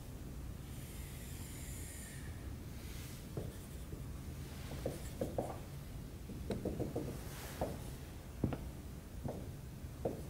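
Dry-erase marker drawing on a whiteboard: a long squeaky stroke about a second in, then short scratchy strokes and light taps as lines and labels go on.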